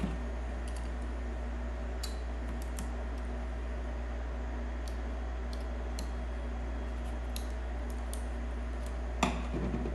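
Faint, scattered metallic clicks and scrapes of a screwdriver tip prying spot-welded nickel strips off the ends of 18650 lithium-ion cells, with one louder snap near the end.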